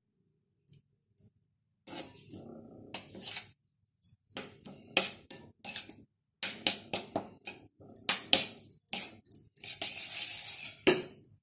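Kitchen utensils and dishes clinking and clattering in a long run of sharp, irregular knocks, starting about two seconds in.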